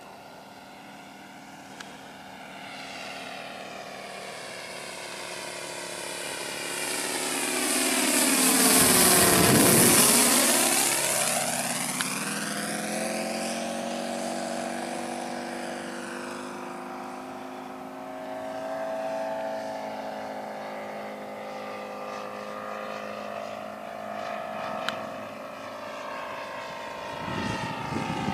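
ASP 400 five-cylinder radial engine of a giant-scale radio-controlled P-47 model in flight. It grows louder to a peak about ten seconds in as the plane makes a low pass, and its pitch drops as the plane goes by. It then drones on steadily and swells again near the end.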